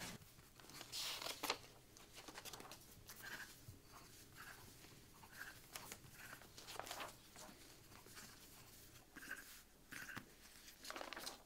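Faint scratching of ballpoint pens writing on paper, with the occasional rustle of sheets being handled.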